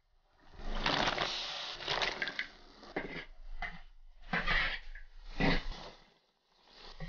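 Steam hissing and sizzling as the lid comes off a wok of chicken braised over a wood fire, then several short scrapes and knocks of metal cookware about once a second.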